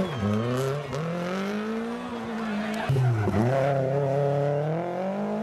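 Rally car engine running at high revs under hard acceleration, its pitch climbing, dropping sharply about three seconds in, then climbing again.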